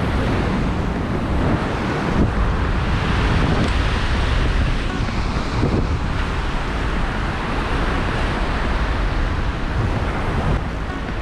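Ocean swell surging and washing over rocks, with wind buffeting the microphone as a steady low rumble.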